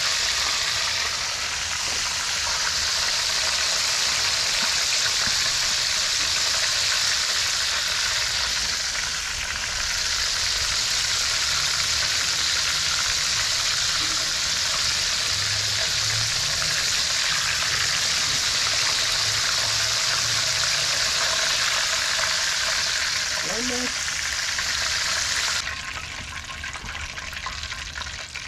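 Bluegill and yellow perch fillets, breaded in cracker meal and cornmeal, deep-frying in hot vegetable oil: a steady, loud sizzle that drops away sharply near the end.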